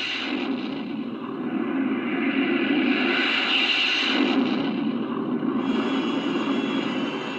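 Colonial Viper engine start-up sound effect played by a model's sound kit: a jet-like rush that swells and eases off, with a steady high whine joining about two-thirds of the way in.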